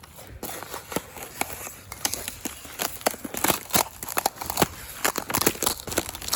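Footsteps crunching across the frozen pond's ice, a quick, irregular run of sharp cracks and crunches.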